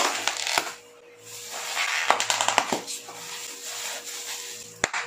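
Plastic bubble wrap squeezed in the hands, crackling and popping in two bursts, with one sharp pop near the end.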